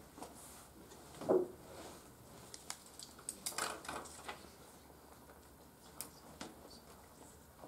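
Scattered small sounds of people writing and handling paper at tables: pen taps, paper rustling and light clicks in a small room, with a louder short thump about a second in and a burst of rustling a little past the middle.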